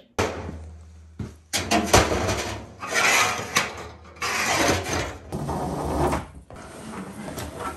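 Gear being packed into a toboggan by hand: canvas bags rustling and scraping, with sharp knocks and clanks of metal from the tent stove and its parts.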